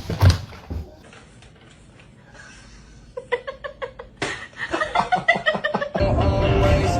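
A person laughing in quick, even bursts for a few seconds, after a quiet stretch. Music comes in loudly near the end.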